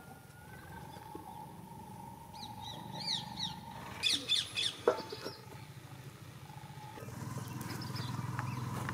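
Birds chirping in short bursts, some calls sliding in pitch, with a single sharp knock about five seconds in as a metal pan is set down on the fire stones.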